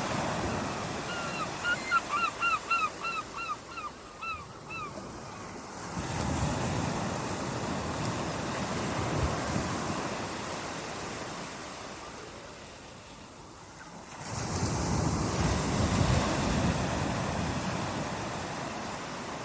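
Ocean surf washing and breaking, with fresh surges about six seconds in and again near fourteen seconds. About a second in, a bird gives a quick run of about a dozen short calls lasting a few seconds.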